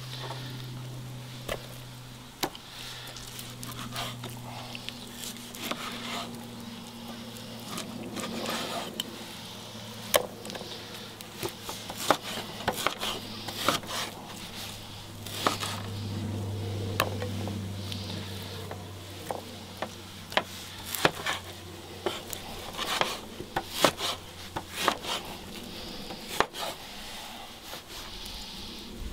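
Knife cutting on a wooden cutting board: irregular knocks and scrapes, with a low steady hum underneath.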